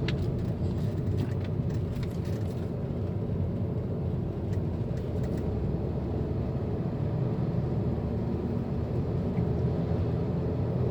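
2008 Volkswagen Passat 2.0 driving at speed, with a steady low rumble of road and engine noise. It is quiet, free of the droning hub-bearing hum, now that the driver-side hub bearing assembly has been replaced.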